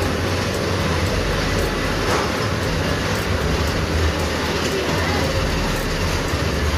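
Steady, loud rumbling noise with a strong deep low rumble underneath, running on without pauses.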